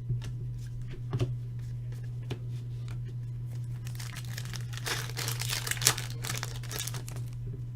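Foil trading-card pack wrapper crinkling and tearing as it is opened, with small clicks of cards being handled; the crinkling is densest in the second half. A steady low hum runs underneath.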